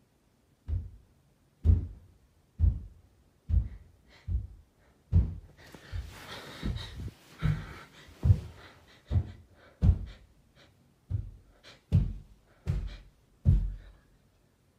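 A run of about fifteen dull, low thumps, evenly paced at a little under one a second, with a stretch of soft hiss in the middle.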